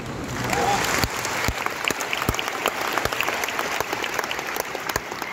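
Large audience clapping, the applause swelling about half a second to a second in and carrying on, with sharp individual claps close by standing out.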